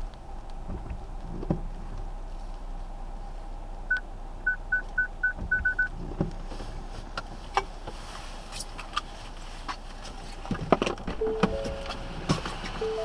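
Steady low car-cabin and road noise while driving on a wet road. About four seconds in come a single short electronic beep and then a quick run of about seven same-pitched beeps. Near the end a few lower notes of a tune begin.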